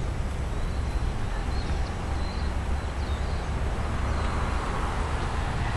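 Steady outdoor background noise: a low, fluctuating rumble under an even hiss, with a few faint, short high chirps in the first half.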